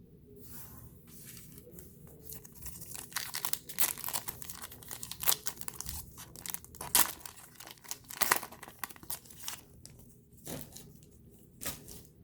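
Plastic wrapper of a trading card pack being torn open and crinkled: a run of sharp rips and crackles, loudest in the middle and thinning out near the end.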